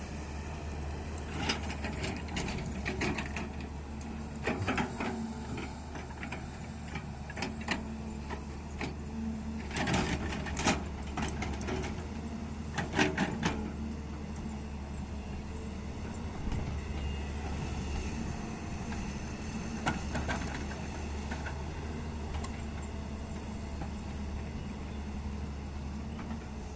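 Hyundai hydraulic excavator's diesel engine running steadily, with several bursts of sharp knocks and clatter as it works.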